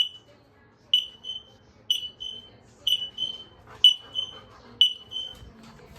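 X-Sense interconnected smoke alarm beeping in test mode: short, high-pitched beeps about once a second, six in all, stopping near the end. From about a second in, each beep is followed by a fainter one, as the other linked alarms in the house set off and join in.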